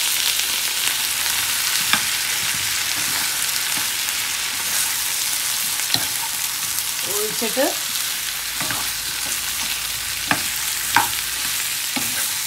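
Chicken wings frying with onions in a non-stick pan, hissing steadily after a quarter cup of water is added. A spatula stirs them, with short clicks and scrapes against the pan every second or two.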